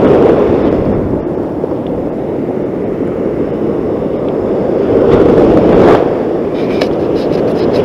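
Ocean surf washing in around the camera on a sandy beach: a continuous rushing wash of broken waves that swells as it begins and again about five to six seconds in, with a few light clicks near the end.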